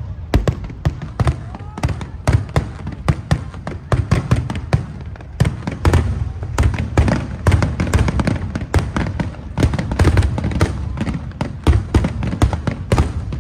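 Aerial fireworks bursting in a dense, continuous barrage, several sharp bangs a second without a break.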